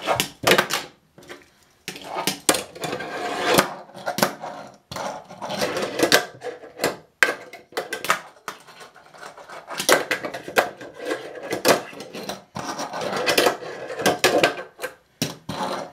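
A 29 mm Tech Deck fingerboard ridden on a plastic ramp and stair set. Its wheels roll and scrape over the plastic, broken by many sharp clacks as the board pops and lands.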